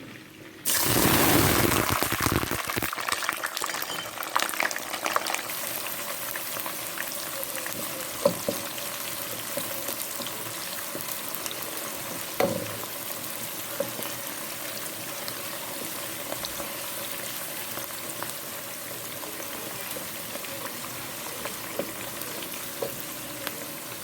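Cooking oil frying in a hot pot. A sudden loud burst of sizzling starts about a second in and dies down over a few seconds to a steady frying hiss, with scattered pops and clicks.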